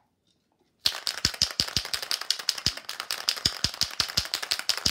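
Aerosol spray paint can being given a hard shake, its mixing ball rattling rapidly, starting about a second in; the paint is being mixed before spraying.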